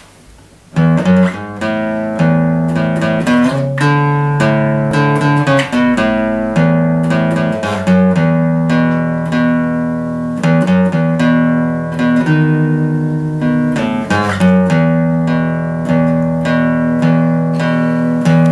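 Guitar played by hand: a slow tune of plucked notes and chords, each note ringing on after it is picked. It starts about a second in.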